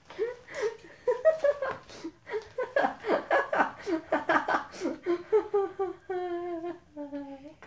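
Young boys laughing and giggling, with two long, held vocal sounds near the end.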